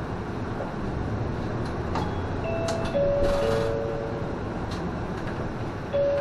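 Inside a moving city bus: steady engine and road noise, with a descending electronic chime of three notes from the bus's announcement system about two and a half seconds in, and a brief hiss as it starts. A second chime begins right at the end.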